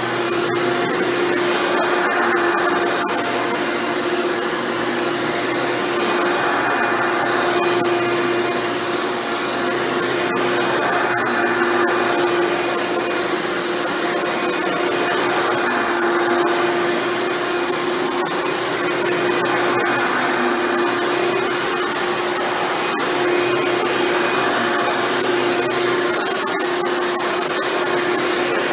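Hoover Dimension Supreme upright vacuum, its motor freshly rebuilt with new bearings, running steadily on carpet: a constant motor hum under a rushing airflow noise that swells and fades every four or five seconds as it is pushed back and forth.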